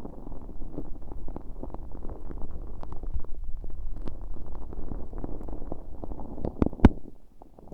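Sticky glitter-filled slime on an earpick worked against a bare ear-shaped microphone: a dense, continuous crackling and squelching of small clicks over a low rumble, with one sharp louder click near the end.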